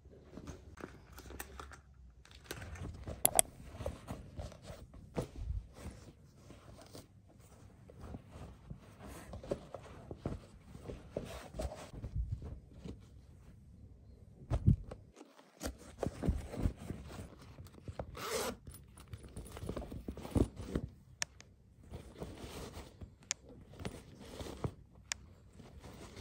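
Close-up packing sounds: socks and fabric rustling as they are stuffed into zippered packing pouches, a zipper being pulled, and small taps and knocks as things are handled and set down.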